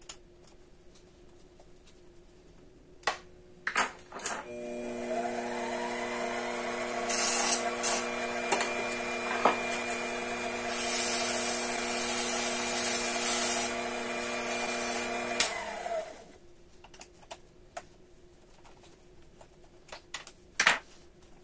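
Mini metal lathe's motor switching on after a few handling clicks and running steadily for about eleven seconds, with two stretches of high scraping hiss as a hand deburring tool takes the burr off the edge of a thin aluminum disc. The motor then switches off and spins down, followed by light clicks of handling.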